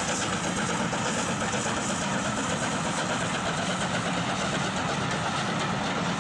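BR Standard Class 7 'Britannia' two-cylinder 4-6-2 steam locomotive No 70000 passing under steam with a steady, dense exhaust sound, followed by its coaches rolling past on the rails.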